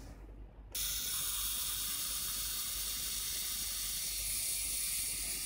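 Canon F-1's mechanical self-timer running after it is released: a steady, high buzz from its escapement that starts suddenly about a second in and keeps going as the lever winds back.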